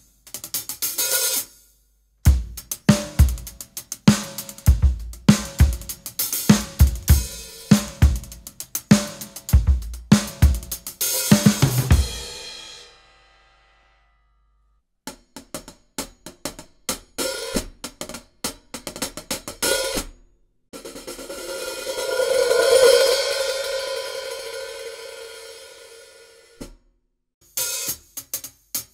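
Close-miked acoustic drum kit played: a steady beat of kick, snare and hi-hat that stops about twelve seconds in, leaving a cymbal ringing out. After a short pause come lighter hi-hat and drum strokes without the kick, then a cymbal wash that swells to a peak and dies away over several seconds, and the kit starts again near the end.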